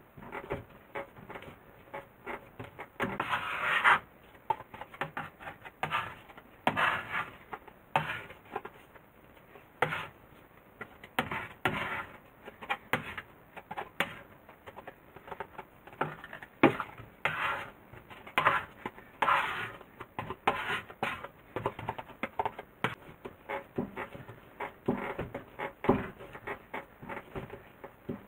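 Hands kneading sticky soy-milk bread dough on a wooden board: irregular pats, squishes and sharp clicks, with swishing scrapes as a dough scraper gathers the dough across the board.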